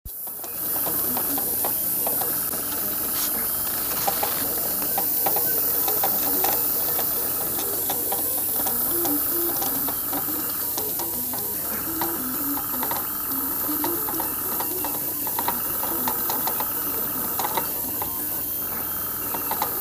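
CNC-driven airbrush spraying with a steady high hiss of compressed air. Over it the machine's stepper motors whine in short tones that start, stop and change pitch every second or two as the head moves and reverses, with light ticks between moves.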